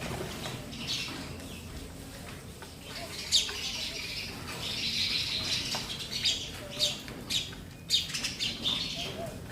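Sparrows chirping and chattering, busiest in the middle, then a quick run of short sharp chirps in the second half.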